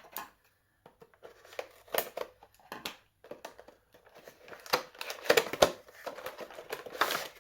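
A cardboard action-figure box being opened by hand: scattered clicks and scrapes of flaps and tabs, growing into denser rustling and scraping of cardboard and plastic packaging about halfway through.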